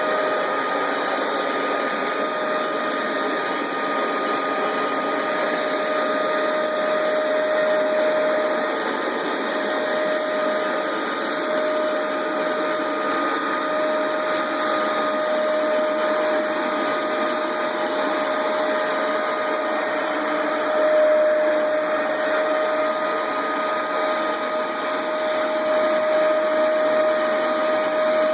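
Hoover Max Extract 77 carpet deep cleaner running steadily, its motor and suction giving a constant hum with a steady tone over it.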